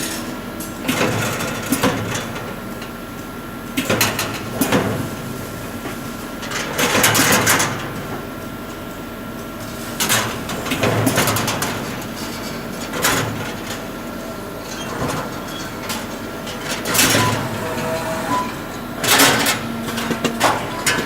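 Numalliance automated wire-bending machine running: a steady machine hum broken by about ten short mechanical bursts at uneven intervals.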